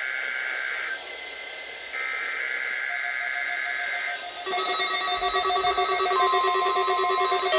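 NOAA Weather Radio EAS/SAME header data bursts: two harsh warbling digital tone bursts, each about two seconds long, separated by a short pause. They mark the start of the Required Weekly Test. About four and a half seconds in, a rapid multi-tone electronic alert pattern starts, and a steady tone joins it a little later.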